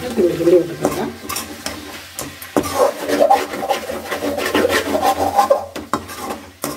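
A metal spatula scraping and stirring chicken pieces, onions and chillies around an aluminium kadai, with irregular scrapes and clinks against the pan.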